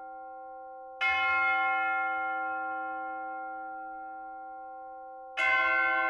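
Church bell tolling: two strikes about four and a half seconds apart, each ringing on with a rich set of tones and fading slowly.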